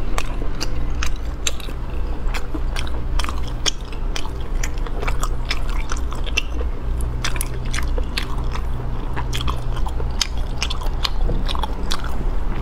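Close-miked chewing of sea snail meat, with many sharp wet mouth clicks and smacks. A steady low hum sits underneath.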